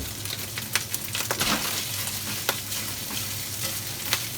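Crisped ground meat and freshly added chopped garlic sizzling in hot oil in a wok, with a steady hiss broken by many sharp clicks from spattering oil and the spatula.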